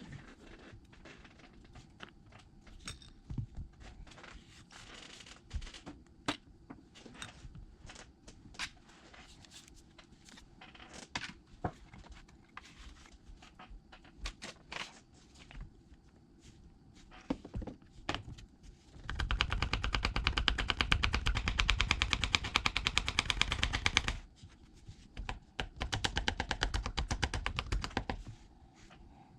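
Small hand tools clicking and tapping against an iPad's frame and internals, then two bursts of very rapid, even rattling clicks, the first of about five seconds, the second shorter.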